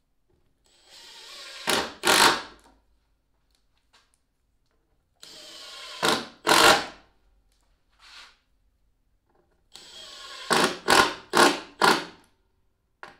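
Cordless driver running screws into glued plywood layers, back into their old holes, to draw the epoxied transom laminations together. There are three runs, each building up and ending in short loud bursts: twice near the start and middle, then several in quick succession near the end.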